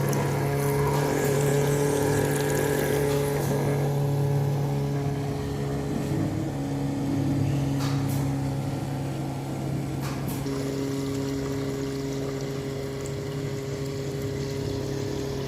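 Small 12-volt DC water pump running with a steady hum, its pitch shifting slightly a couple of times, with a few light clicks.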